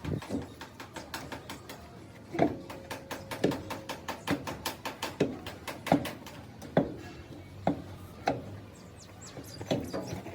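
Rapid mechanical clicking with a heavier knock about once a second, as of a hand tool being worked in a repair shop.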